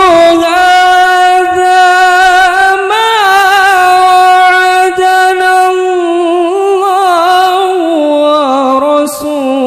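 Male qari reciting the Qur'an in melodic tilawah style, drawing out one long ornamented vowel with fine wavering turns; the pitch steps down near the end.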